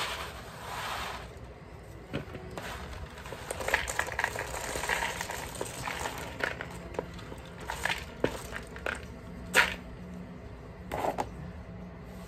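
Dry peanuts and peanut shells crackling and rattling as they are handled on a woven winnowing tray: a busy run of small irregular clicks and rustles, with a few sharper, louder clicks late on.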